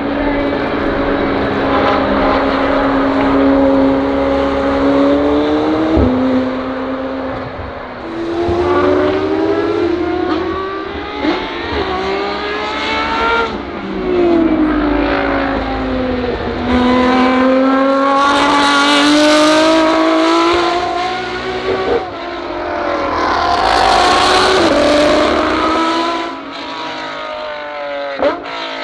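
High-performance supercars, a McLaren Senna among them, accelerating hard past on a race circuit. The engine note climbs through each gear and drops sharply at every upshift, over several passes.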